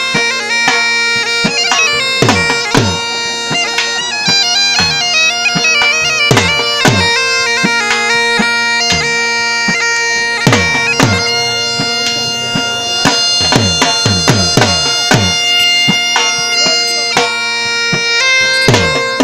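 Bagpipes playing a lively melody over a steady drone, with a large dhol drum beating a jhumar dance rhythm; the deep drum strokes slide down in pitch.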